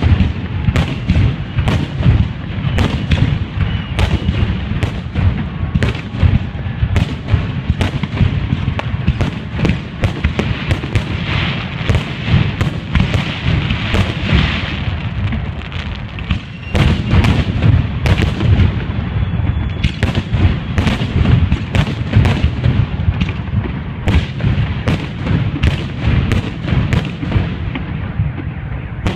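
Fireworks display: aerial shells bursting in a continuous rapid barrage of sharp bangs and deep booms, with a brief lull just past the halfway point.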